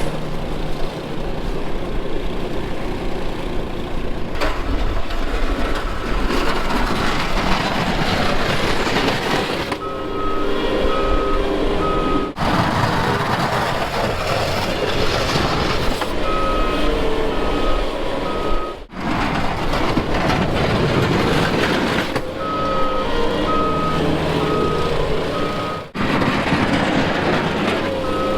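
A heavy vehicle's engine runs under load while its reversing alarm beeps about twice a second in several stretches. The sound breaks off abruptly a few times.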